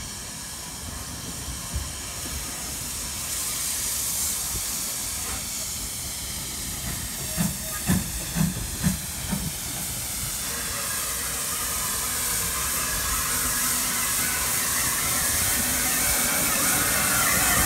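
GWR 1500 class pannier tank steam locomotive No. 1501 drawing into a platform, its steam hissing steadily and growing louder as it comes close. A handful of short, low thuds come about eight seconds in.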